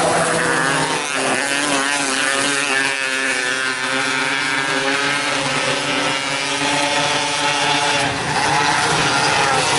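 Several 270cc micro sprint race cars' engines running hard at once, a continuous engine drone whose pitch wavers up and down as the cars lift and get back on the throttle around the track.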